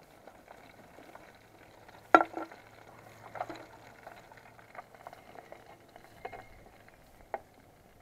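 A burger frying with a faint sizzle in an aluminium mess tin over an alcohol stove, with one sharp click about two seconds in and a few lighter knocks of a knife against the tin.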